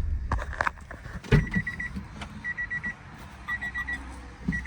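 Honda Del Sol's electronic warning chime beeping in quick groups of about four, repeating roughly once a second, with a few clicks near the start.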